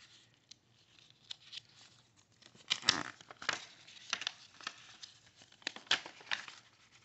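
Paper rustling and crinkling as a folded instruction leaflet is handled and unfolded, in a run of short crackles that start about two and a half seconds in.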